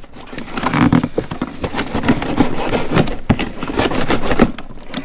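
Cardboard shipping box being cut open with a knife and handled: a rapid run of scraping, tearing and knocking sounds.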